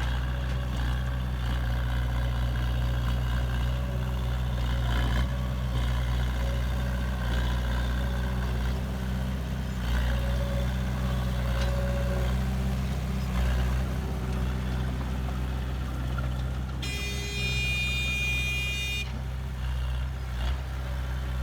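Heavy earthmoving machinery's engine running steadily with a continuous low hum. Near the end a high-pitched tone sounds for about two seconds.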